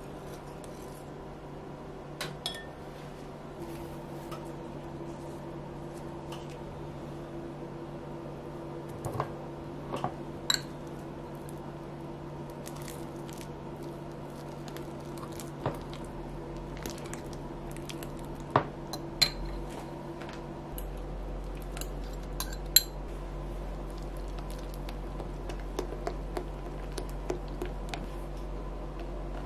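Hands-on batter and banana prep in glass bowls: a small wire whisk stirring batter, a fork mashing peeled bananas with soft squishing, and a silicone spatula in batter. Scattered sharp clinks of metal on glass sound over a steady low hum, and the hum's low rumble grows louder about two-thirds of the way through.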